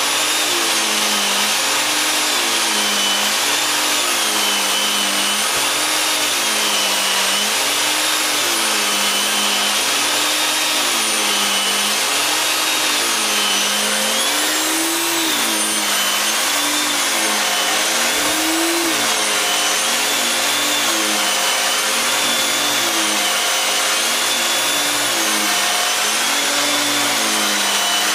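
Vacuum cleaner running steadily, its motor pitch swinging up and down about every two seconds.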